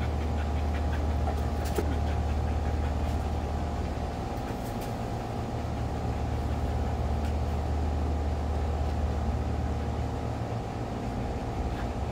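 A steady low machine hum, even in level throughout, with a faint steady whine above it.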